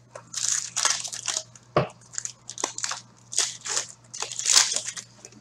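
Hockey trading cards being shuffled and slid against one another in the hands: a quick, irregular string of short, crisp rustles and scrapes.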